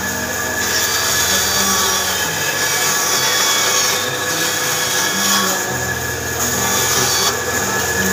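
A small bench-mounted electric motor used as a sander runs with a steady whine while wooden spoon blanks are pressed against it, a rough rasping that swells and drops back several times as each piece is worked.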